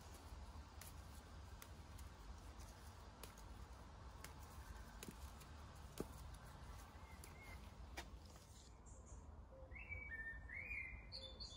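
Faint snaps of mint stems being picked by hand, a few separate clicks, over quiet outdoor background; near the end a bird chirps several times.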